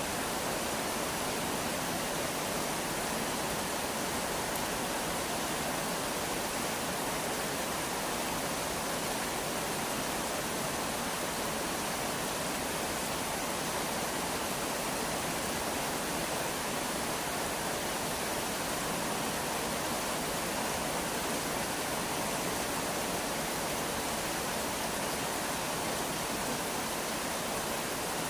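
Rain falling steadily: an even hiss with no breaks and no single drops standing out.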